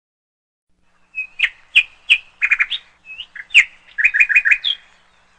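A bird chirping in short, sharp calls, some single and some in quick runs of three or four, starting about a second in.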